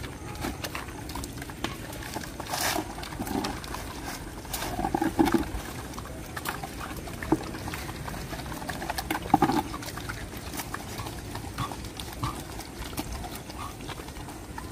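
A pack of street dogs and puppies eating from plates and a bucket, with scattered sharp clicks and knocks and a few short calls from the dogs, about five and nine seconds in.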